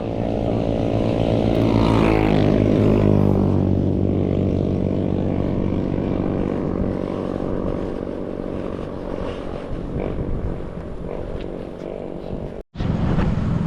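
Motorcycle engine running steadily at road speed, its pitch sweeping about two seconds in. The sound cuts out for an instant near the end.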